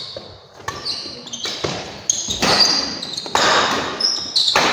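Badminton doubles rally: rackets hitting the shuttlecock in quick succession, mixed with short high squeaks of shoes on the court floor.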